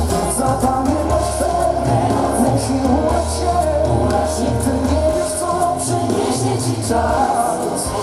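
Live pop music from a band with several singers, heard from among the audience.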